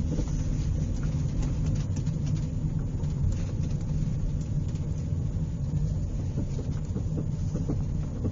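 Steady low rumble of a car moving along the road, heard from inside the cabin, with faint ticks and rattles over it.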